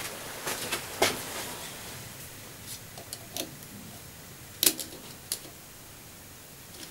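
Scattered light clicks and taps of a digital caliper being handled and set against a metal bushing in the chuck to measure the depth of a freshly slotted keyway; the sharpest click comes about four and a half seconds in.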